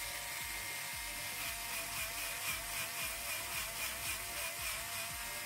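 Electric nail drill running with a steady, slightly wavering whine while its bit files down an acrylic nail.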